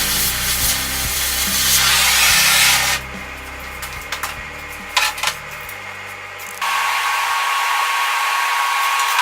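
Power tool grinding steel, which stops about three seconds in. A few light clicks follow, then a steady hiss starts.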